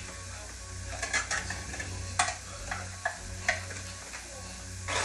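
A cooking utensil stirring in a pan, scraping and tapping against it at irregular intervals, over a faint sizzle of frying food and a steady low hum.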